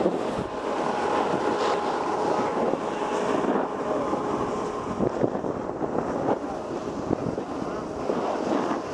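Wind rushing over an action camera's microphone with the scraping hiss of edges carving on packed snow during a run down a groomed slope, with a few small knocks from bumps along the way.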